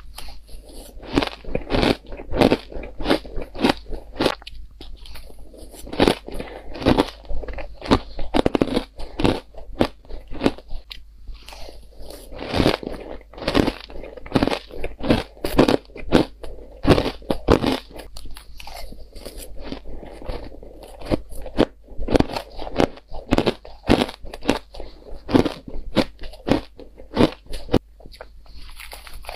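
Close-miked biting and chewing of spoonfuls of purple crushed ice, a dense run of sharp, irregular crunches several times a second with a few brief pauses.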